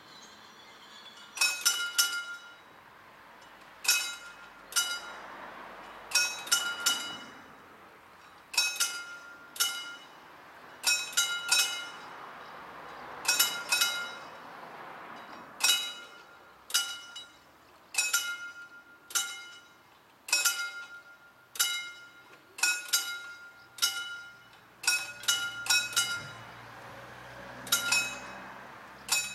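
Mechanical pre-warning bell (Vorläutwerk) of a railway level crossing ringing in irregular clusters of two to four quick metallic strokes, a cluster every second or two. It is the warning that the hand-worked barriers are about to be lowered.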